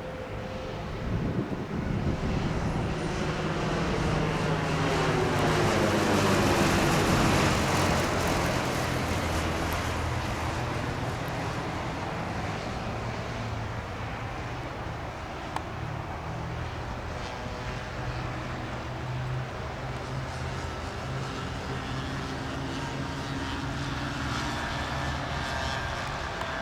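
Piper PA-28-161 Warrior III light aircraft on its landing pass, its four-cylinder Lycoming piston engine and propeller running at low power. The sound grows louder to a peak about seven seconds in with a sweeping, phasing whoosh as the plane goes by, then carries on more steadily with small shifts in the engine note.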